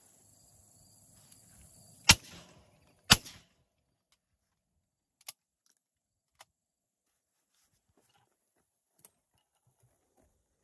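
Two shotgun shots about a second apart, each sharp and loud, followed by a few faint clicks.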